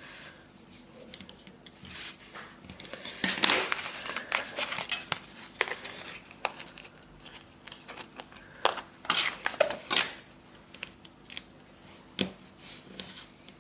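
Hands working paper on a cutting mat: irregular short taps, clicks and paper rustles as foam adhesive pads are stuck onto a small paper sentiment strip, with small bursts of clicks around four seconds in and again near ten seconds.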